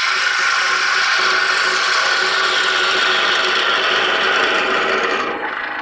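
Carbide-tipped parting tool cutting into pine spinning on a wood lathe: a steady, loud scraping hiss of the cut that eases off about five seconds in.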